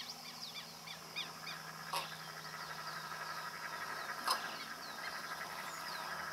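Several birds calling: a stream of short, falling chirps, with two sharp clicks about two and four seconds in.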